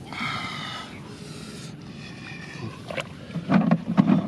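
An animal call held for nearly two seconds, then a shorter second call, followed near the end by a run of splashes and knocks in water.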